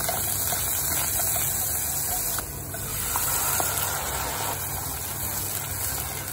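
Minced garlic and doubanjiang sizzling in hot olive oil in a pot: a steady frying hiss, with a few light taps of a wooden spatula stirring.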